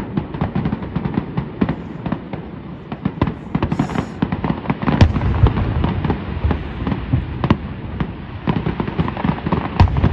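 Fireworks display: a dense run of sharp pops and crackles from bursting shells, with heavier booms about five seconds in and again near the end.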